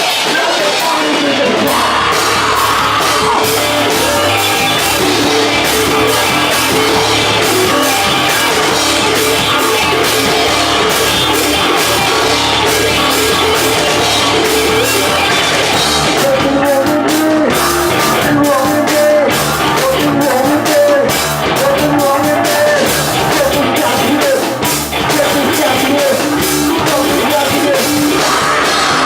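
Live rock band playing loud, with drums, amplified guitars and a singer.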